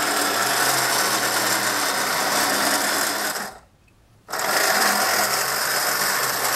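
Battery-powered electric motor and gear train of a 1960s Marx Big Bruiser toy tow truck running as it drives forward. It stops for under a second about three and a half seconds in, then runs again.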